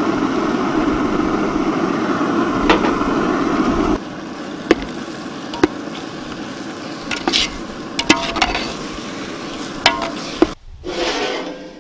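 Prawn masala frying and being stirred in a large metal cooking pan: a steady sizzling scrape. About four seconds in it turns quieter, with a few sharp clinks of the ladle against the pan.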